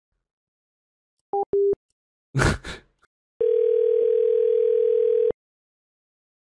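Telephone line tones: two short beeps about a second and a half in, a short noisy burst, then one ringback tone lasting about two seconds as a call to the support number rings through.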